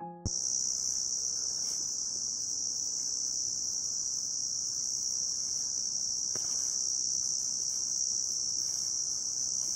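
Steady, high-pitched chorus of insects singing without a break.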